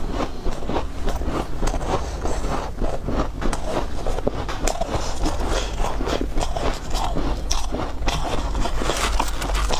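Close-miked crunching of soft white ice, in a dense run of quick crackly crunches as it is chewed, with a metal spoon scraping into the ice block.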